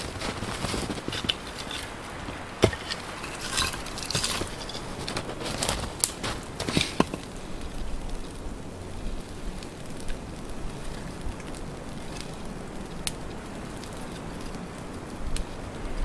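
Boots crunching in snow and sticks rustling and snapping as a small campfire is tended, busiest in the first half, then only a few isolated snaps.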